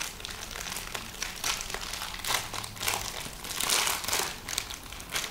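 A trading card pack's wrapper crinkling in the hands as it is torn open, with irregular crackles throughout.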